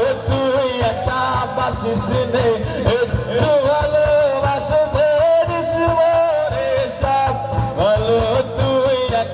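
Live acoustic performance: a man singing into a microphone while playing an acoustic guitar, with a cajón tapped by hand keeping the beat.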